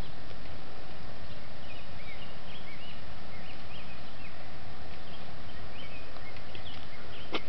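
Steady rumble of a bicycle ride towing a dog trailer, with many short high chirps scattered over it and a sharp click near the end.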